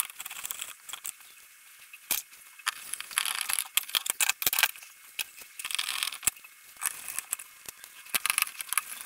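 Small screwdriver working screws in a bench power supply's metal case and heatsink: an irregular run of metallic clicks and scraping.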